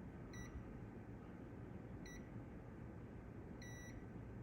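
A multimeter's continuity tester gives three short, separate beeps, the last a little longer, as the probes touch the circuit-board trace. Continuity is found, but the beeping comes and goes, which the owner puts down to his probes being probably a bit dirty.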